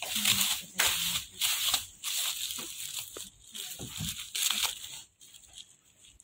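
Plastic bubble wrap crinkling and rustling as a package is handled and unwrapped by hand. The crackles are dense for the first couple of seconds, then grow sparser and die down about five seconds in.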